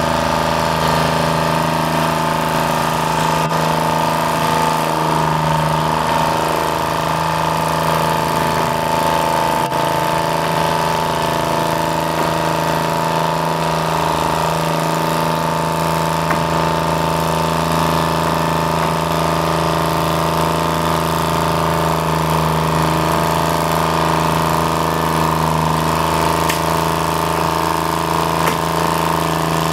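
An engine running steadily at constant speed, a low drone with a steady whine over it, with no change in pace.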